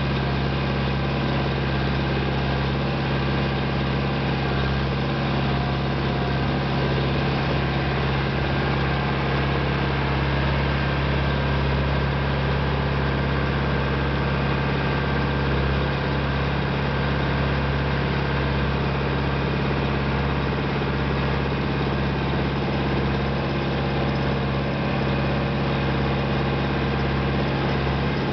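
International Harvester 574 tractor engine running at a steady pitch under load, pulling a two-bottom plow through the soil, heard from the driver's seat close to the upright exhaust.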